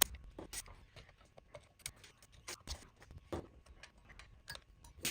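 Scattered small clicks and taps at an irregular pace, from hand tools and parts being handled while an amplifier is taken apart.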